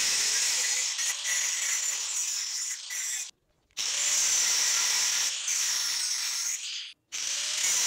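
Angle grinder with a thin cutting disc running against rusty steel, a steady high-pitched grinding as it cuts into the knife blank. The sound drops out abruptly for about half a second a little over three seconds in, and briefly again about seven seconds in.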